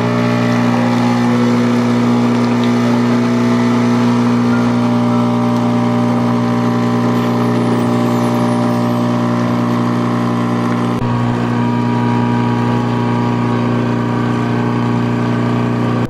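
Lahome capsule coffee maker's pump running with a loud, steady hum as it pushes a stream of water through into a mug, a water-only rinse to clean the unit. The hum deepens and fills out slightly about eleven seconds in.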